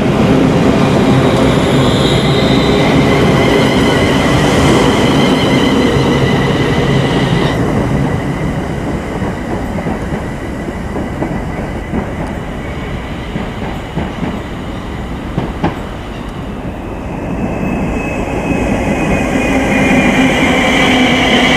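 London Northwestern Railway electric multiple unit, a Class 350 Desiro, running into the platform. Wheels rumble and clatter under a high steady whine from its traction equipment. The sound eases off through the middle and builds again near the end, where the whine slowly falls in pitch.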